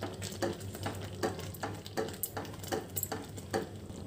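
A silicone spatula stirring thick, bubbling rice pudding (phirni) in a non-stick pan: a run of soft clicks and plops, about two or three a second.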